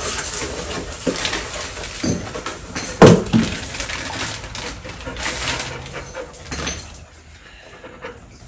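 Cardboard box and plastic packaging rustling and knocking as a new turn signal lamp is unpacked, with a dog whining close by. The loudest moment is a sharp sound about three seconds in, and it goes quieter near the end.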